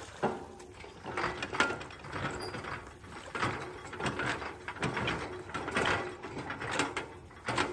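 Metal creaking and grinding as a boat lift's frame is pried up and forward over a steel pipe. The strokes come about once a second.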